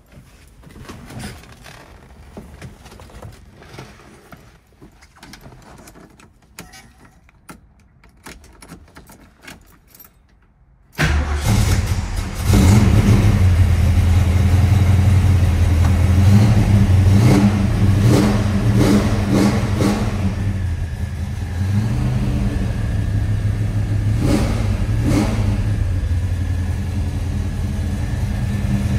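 Faint clicks and handling noises for about ten seconds, then a 1971 Ford Mustang Mach 1's V8 cranks briefly and fires on a cold start. It runs loudly at a raised cold idle, the revs easing down somewhat about ten seconds after it catches and then holding a steady idle.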